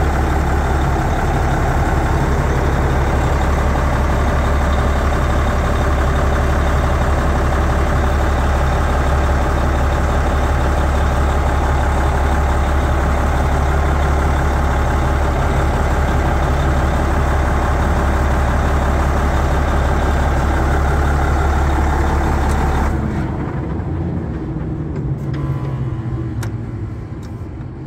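Caterpillar D8R high-track bulldozer's diesel engine running steadily with a deep drone, then cutting out about 23 seconds in, leaving a brief fading rumble.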